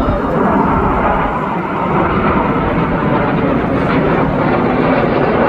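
Loud, steady jet roar of Blue Angels F/A-18 Super Hornets flying past.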